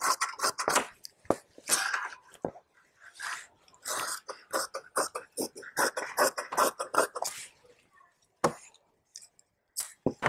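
Large tailor's shears cutting through blouse fabric on a table: a quick run of snips as the blades close, broken by short pauses.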